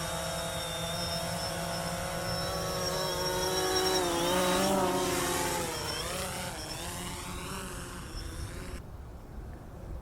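A drone's propellers whining close by, the pitch wavering and dipping about halfway through as it manoeuvres, then fading near the end.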